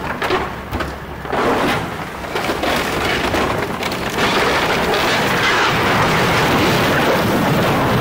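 Komatsu excavator demolishing a building: timber and debris cracking and crashing over the machine's rumble, mixed with the steady hiss of a water hose spraying the rubble. The noise grows louder and more continuous about four seconds in.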